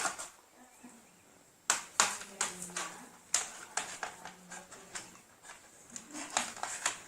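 Scattered sharp clicks and taps of tools and parts being handled on a workbench, starting about a second and a half in and coming irregularly after that.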